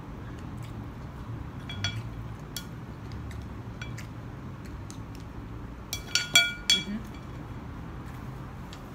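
Chopsticks and a spoon clinking against a ceramic rice bowl while eating. There are a few light, ringing clinks, then a quick cluster of louder clinks about six seconds in.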